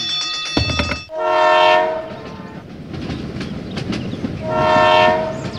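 Train horn sounding two blasts of just under a second each, over the steady rumble of a train running on the rails.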